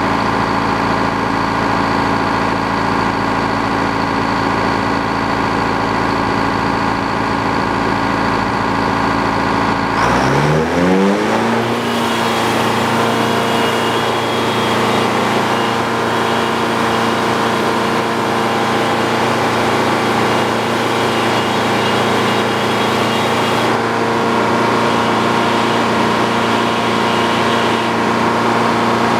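Sawmill engine running steadily at low speed, then revving up about ten seconds in with a rising pitch and settling at a higher steady speed. A thin high whine sits on top of it from about twelve seconds to about twenty-four seconds.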